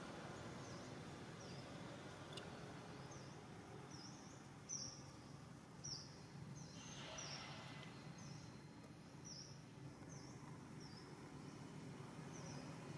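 A bird chirping faintly, short high chirps repeated a little more than once a second over steady outdoor background noise, with two soft knocks about five and six seconds in.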